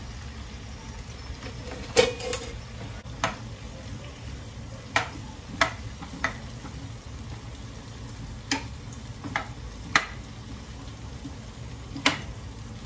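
A metal spoon knocking and scraping against a frying pan as chunks of boiled potato are turned. There are about ten sharp, irregular clinks, the loudest about two seconds in and again near ten seconds, over a steady low background noise.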